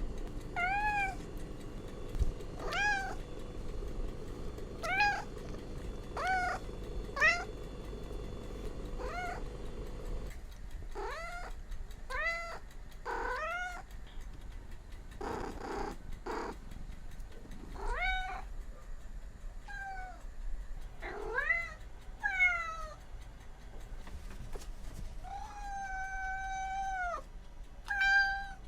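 Domestic cat meowing repeatedly: short meows that rise and fall, about one every two seconds, then after about ten seconds a quicker run of meows from a different recording, with a long drawn-out meow near the end.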